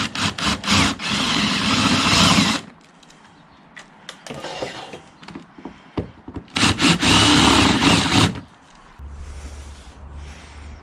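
Cordless power drill drilling out pop rivets in two bursts of about two seconds each, with small clicks and knocks of the work between them. A low steady hum sets in near the end.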